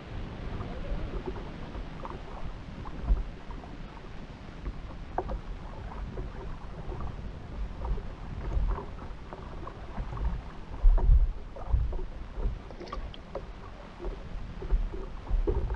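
Water sloshing and slapping against a slow-moving banca's hull, with uneven thumps and wind buffeting the microphone; a louder cluster of splashes comes about eleven seconds in.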